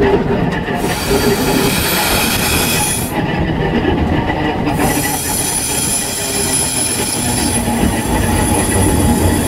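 Old narrow-gauge electric tramcar running along its track: a steady rumble of wheels on rail under a high-pitched squealing whine. The whine drops out for about a second and a half some three seconds in, then comes back.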